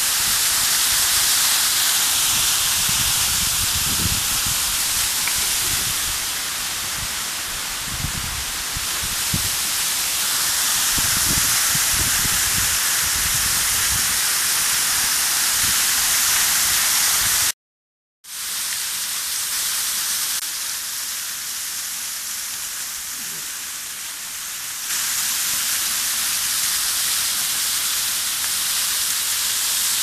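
Waterfall pouring down rock and splashing onto boulders close by: a steady rushing hiss of falling water and spray. Irregular low thumps come through in the first half. The sound cuts out for under a second just past the middle, then returns a little quieter and rises again near the end.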